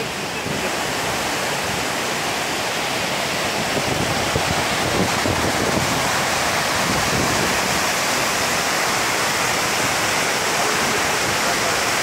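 Steady rush of water from a large waterfall and the rapids below it.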